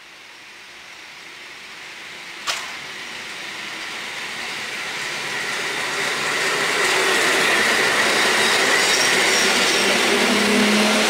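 EN71 electric multiple unit approaching and running past along the platform, its wheel and running noise growing steadily louder. A single sharp click comes about two and a half seconds in, and a steady low hum joins near the end.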